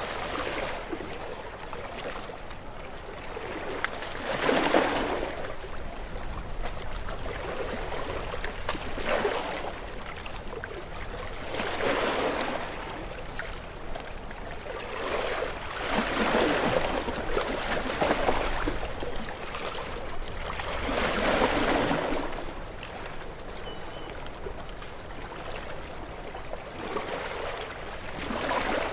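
Ocean waves washing onto the shore. Each wave swells up and fades away every few seconds, about six times over the stretch.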